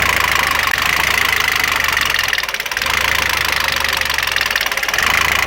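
Citroën C4 2.0 engine running at idle with a fast, even ticking over it, dipping briefly about two and a half seconds in. The noise comes from the exhaust camshaft side of the cylinder head, which the mechanic finds is getting no oil.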